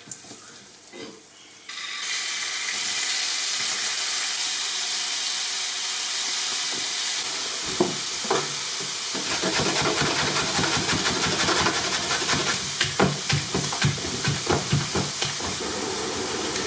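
Butter bubbling quietly in a frying pan, then a loud, steady sizzle from about two seconds in as strips of marinated rabbit back steak fry. A few knocks and scrapes of stirring come in the second half.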